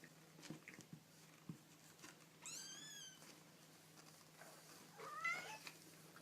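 A baby kitten mewing: two short, high-pitched mews about two and a half seconds apart, each rising and then falling in pitch, with a few faint taps before them.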